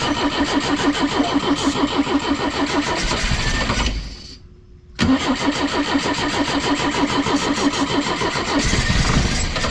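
1973 Pinzgauer's air-cooled four-cylinder petrol engine cranking on the starter without firing: a steady, even rhythm that stops about four seconds in and starts again a second later. It does not catch because the new fuel pump is still filling the empty fuel filter.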